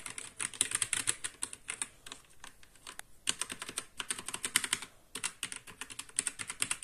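Fast typing on a Marvo KG962 mechanical keyboard with Outemu Red linear switches: dense runs of key clacks, broken by a few short pauses.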